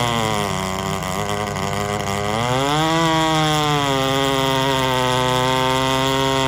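Large Stihl 090 two-stroke chainsaws running flat out, cutting through logs together. The nearest saw's pitch sags as it bogs down in the cut over the first second or so. It climbs again about two and a half seconds in, then holds steady under load.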